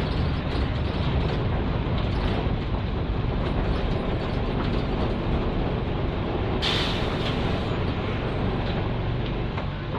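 Interior running sound of a Nissan Diesel K-U31L bus under way, its PE6H diesel engine pulling steadily. About two-thirds of the way through comes a short hiss of released air lasting about a second.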